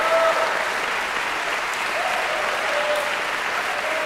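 Audience applauding steadily in a large concert hall, with a few short calls rising over the clapping.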